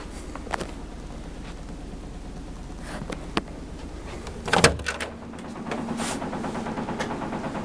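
Scattered clicks and a sharp clatter about four and a half seconds in, then a steady, fast buzzing rattle of something in the house shaking under a 9 Hz subsonic tone from sealed 18-inch subwoofers.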